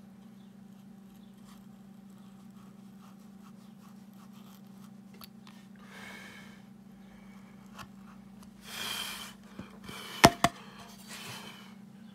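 Hand carving chisel paring into wood: several short scraping cuts, with two sharp clicks of tool on wood about ten seconds in, the loudest sounds. A steady low hum runs underneath.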